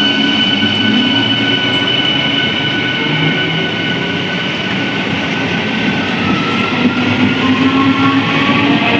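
Electric train running through a station with its wheels rumbling and a whine of several held tones that sag slightly in pitch. From about six seconds a new set of tones rises steadily in pitch, as the traction motors speed up.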